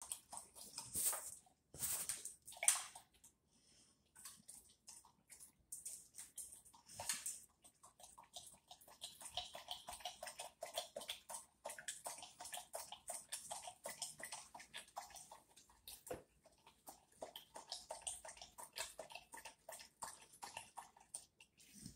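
A large dog lapping water from a bowl: a long, fast run of wet laps, with a few louder splashy laps in the first few seconds.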